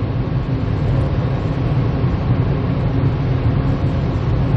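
Steady in-cabin noise of a Kia Morning at expressway speed: a low engine drone mixed with road and wind rumble, even throughout.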